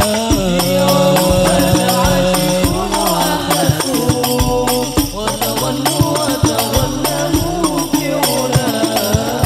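Al Banjari shalawat group performing: voices hold long, wavering notes of an Arabic devotional song over steady hand-played frame drum strokes.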